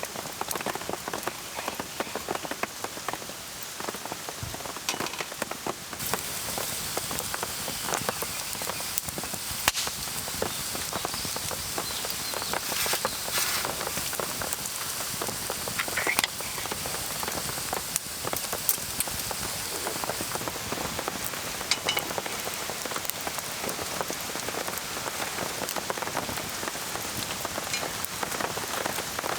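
Steady rain falling, a continuous hiss thick with the ticks of individual drops striking surfaces.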